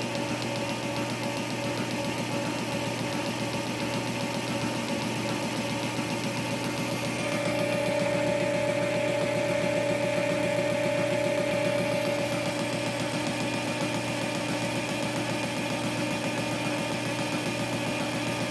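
Metal lathe running with a high-speed steel boring bar taking an interrupted cut through a keyed sprocket bore: a rapid, regular beat each time the tool crosses the keyway, over the steady running of the lathe. From about seven to twelve seconds in a louder steady tone rises over it, then drops back.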